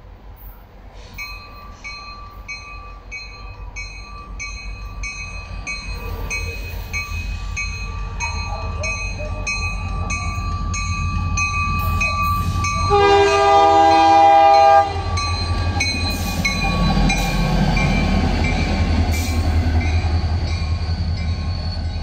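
Level crossing bell ringing in a steady beat while an EMD SD40 diesel-electric locomotive approaches, its engine rumble growing louder. Past the middle comes one long blast of about two seconds from the locomotive's multi-chime air horn, which cuts off sharply. The locomotive's engine then rumbles loudest as it draws close.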